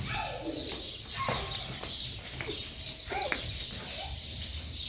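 Birds chirping, with a few short calls near the start and around the middle, over a steady low rumble.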